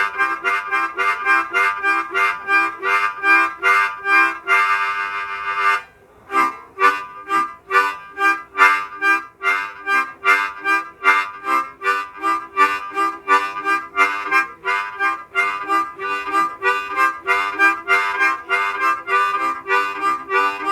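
Diatonic harmonica in C playing the chugging train rhythm: quick, evenly repeated chords alternating between blow and draw, with a short break about six seconds in.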